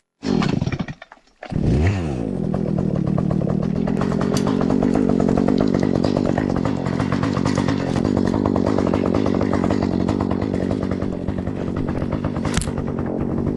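Chainsaw engine: a short burst that falls in pitch and dies away, then about a second and a half in it comes back, pitch rising, and runs steadily from then on.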